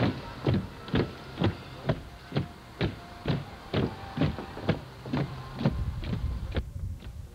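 A steady beat of sharp thumps, about two a second, over faint sustained tones; the beat stops near the end.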